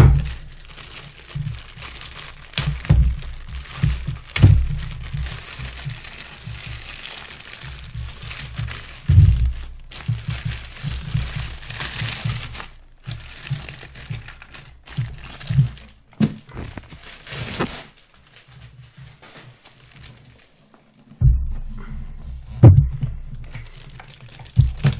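Packaging being unwrapped by hand: packing material crinkling and tearing, with scattered knocks and thumps as the turntable case is handled. It goes quieter a few seconds past the middle, then a few louder thumps follow near the end.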